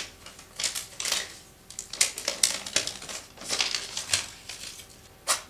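A run of crisp tapping, clicking and rustling handling noises, irregular and about a dozen in all, with one sharp one near the end.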